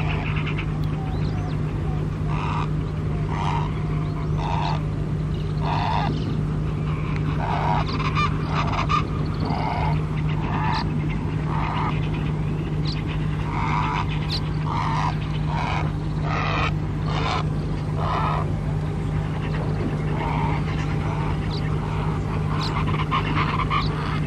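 Steady low drone, like a running engine, with a run of short honk-like calls repeating roughly once a second over it.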